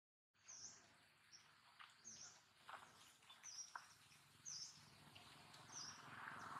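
Faint high bird call, a short rising-and-falling chirp repeated six times about a second apart, over quiet outdoor background hiss.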